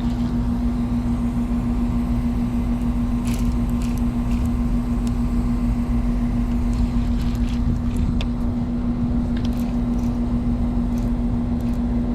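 Steady mechanical hum: a constant low tone over a low rumble, with a few faint scattered clicks.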